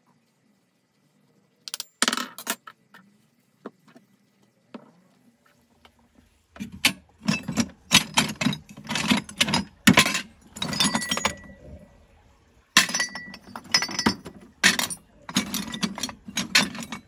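Scrap cast-aluminium parts clattering and clinking against each other as a hand rummages through them in a plastic box. A few scattered clinks at first, then a busy run of sharp metal clatters from about six seconds in.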